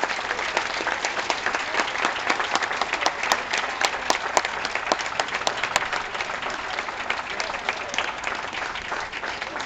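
Ringside audience applauding, many hands clapping steadily, thinning a little over the last few seconds.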